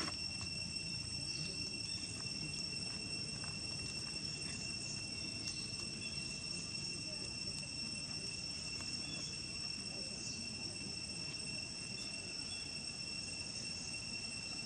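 Steady high-pitched insect chorus, an even, unchanging whine over a low rumble.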